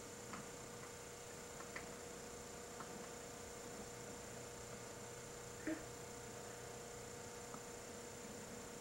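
Steady electrical hum, with a few faint ticks and one brief louder blip a little past halfway.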